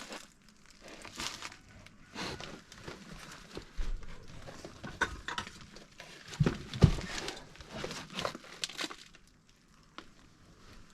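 Rummaging through old items and boxes: irregular rustling and crinkling with clicks and knocks as things are handled, and a couple of louder thumps about six and a half to seven seconds in.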